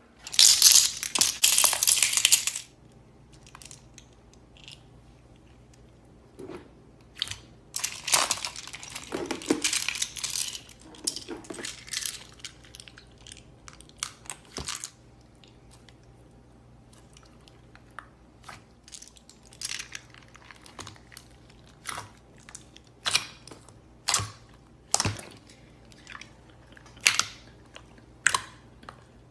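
Slime being squished and pressed by hand: loud crackling stretches near the start and around the middle, then a run of sharp, separate pops about one to two seconds apart.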